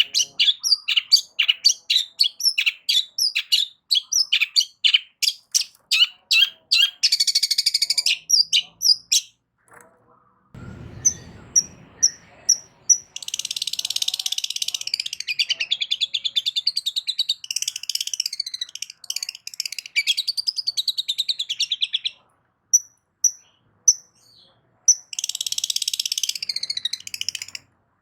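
Long-tailed shrike (cendet) calling: fast runs of sharp, high chirps, about three a second, broken by long stretches of harsh, buzzy scolding chatter. A faint low rumble sits under a pause near the middle.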